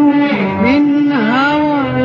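Arabic orchestral song music: one held, ornamented melody line that dips in pitch twice, over lower sustained notes.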